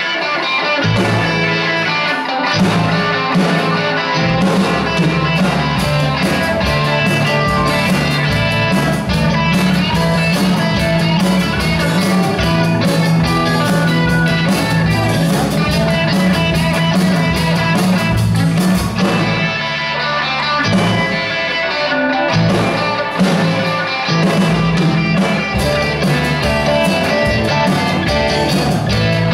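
Live rock band playing, led by electric guitar, with bass guitar and a drum kit keeping a steady beat.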